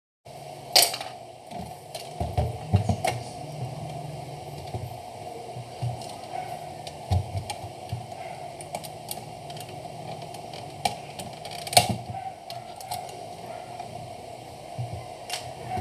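Sharp clicks and knocks of hard plastic as a Jura Z6 coffee machine's brewing unit is handled and its hose-holder clip is pried loose with a small tool, over a steady faint hum. The loudest clicks come about a second in, around three seconds in and near twelve seconds in.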